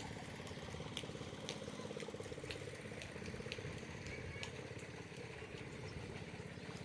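Engine in the pool's machine room running steadily at a low idle, with a faint regular tick about twice a second.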